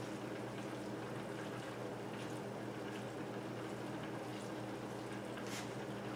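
Vegetable stir fry simmering in a nonstick skillet with a steady bubbling hiss, while a silicone spatula stirs through it with a few soft scrapes. A low steady hum runs underneath.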